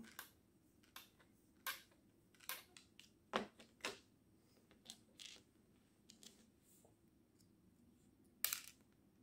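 Scattered light clicks and taps of an RC car's rear wing mount being handled and screwed together with a hex driver, with a sharper knock about three seconds in and another short cluster near the end.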